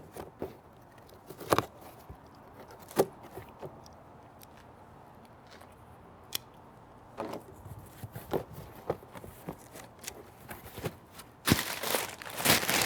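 Cardboard shipping box being opened by hand: a few sharp clicks, then rustling and handling of the box, and about eleven seconds in a loud stretch of tape and cardboard tearing.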